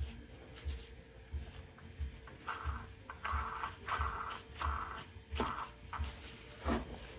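Light clicks, taps and scraping from chainsaw parts being handled and cleaned, with a few short scrubbing sounds in the middle. Faint background music with a steady low beat runs underneath.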